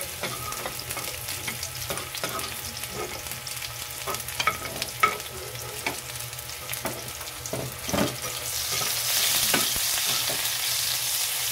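Sliced onions and garlic frying in hot oil with a steady sizzle, broken by the scrape and tap of a slotted spatula stirring them in the pan. The sizzle grows louder near the end.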